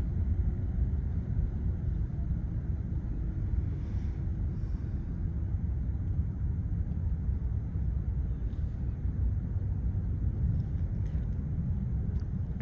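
Steady low outdoor rumble with no distinct events, and a faint held tone over the first few seconds.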